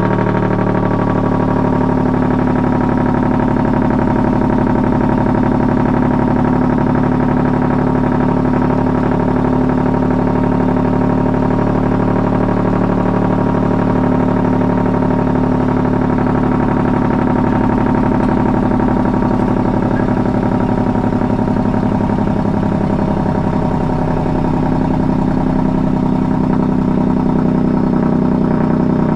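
Heavy truck's diesel engine running steadily at constant speed, with an even pulsing drone.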